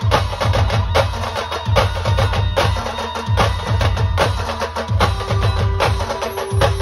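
Brass band percussion playing a fast dhol-tasha beat: rapid, sharp drum strokes over heavy low drum beats. A steady held note comes in about five seconds in.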